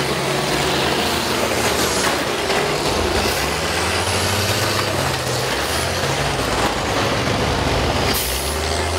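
Several school bus engines running and revving, their pitch shifting up and down a few times over a constant loud din.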